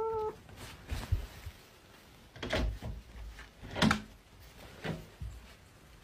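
A few scattered dull knocks and thumps, the clearest about two and a half and four seconds in, after a brief pitched call right at the start.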